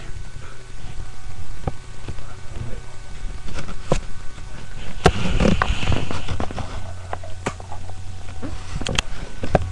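Handling noise close to a webcam microphone: scattered clicks, knocks and rubbing, with a rougher burst about halfway through, over a steady low hum.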